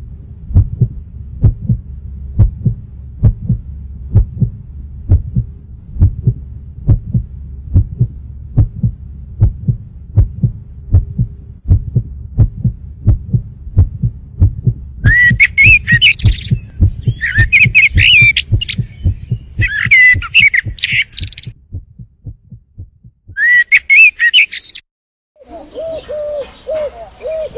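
Heartbeat-like sound effect: a steady, slow thumping at about two beats a second. From about fifteen seconds in, bursts of high warbling, bird-like chirps join it, and the thumping stops a little after twenty seconds.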